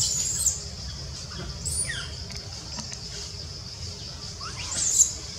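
Baby macaque giving short, high-pitched squeals, three times, the last about five seconds in the loudest, over a steady high-pitched background drone.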